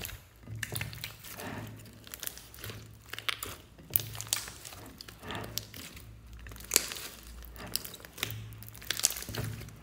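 A big mass of mixed slime being squeezed and kneaded by hand, giving irregular sticky crackles and popping clicks.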